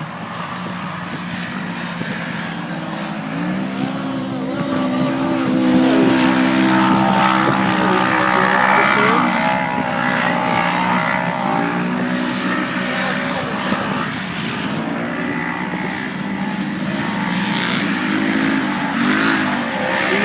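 Off-road race vehicle engines running hard and revving as they go by, the pitch rising and falling with throttle and gear changes; loudest about six to nine seconds in, building again near the end.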